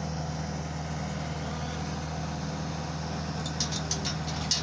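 Skid-steer loader's diesel engine running steadily with a low, even hum, with a few sharp clicks near the end.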